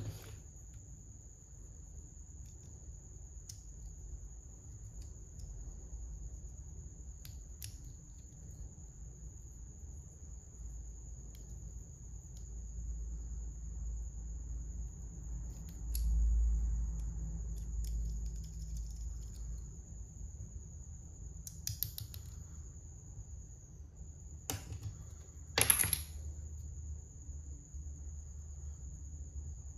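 Small plastic clicks and taps from Lego minifigure parts being handled and fitted together, a few scattered through, the sharpest near the end. Under them runs a steady high-pitched tone and a low hum.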